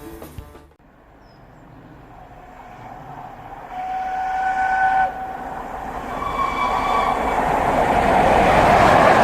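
Steam locomotive 60163 Tornado approaching at speed. It sounds its whistle in two long blasts, the second higher-pitched, while the rush of the train grows steadily louder to a peak near the end as it draws level.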